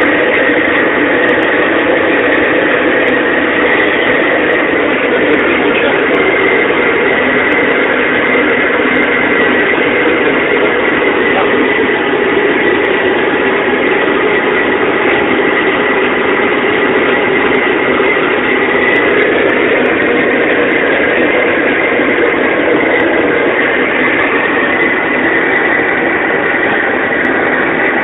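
A motor-driven machine running steadily, with a constant high whine over a lower hum.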